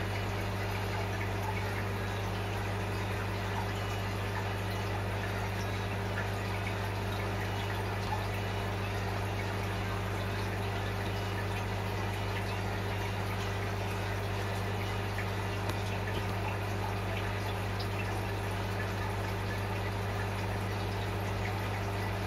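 Aquarium pump running with a steady low hum, over a faint fizzing trickle of water with small scattered ticks.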